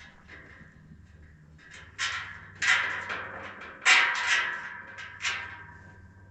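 Metal carport tubing and fittings clanking as they are handled and knocked together: four sharp metal knocks in the second half, each leaving a brief ringing tone, over a steady low hum.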